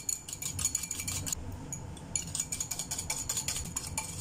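Wire balloon whisk beating an egg yolk with sugar in a small bowl, its wires clicking rapidly against the bowl's side, with a brief pause about a second and a half in. The yolk is being whisked until the sugar dissolves.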